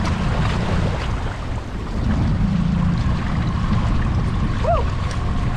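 Wind buffeting the microphone over choppy waves around a fishing boat: a loud, steady low rumble.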